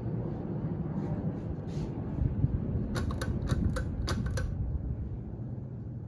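Mid-1980s 52-inch Evergo Roma ceiling fan running on high speed: a steady low rush of moving air, with a quick run of sharp clicks about three seconds in.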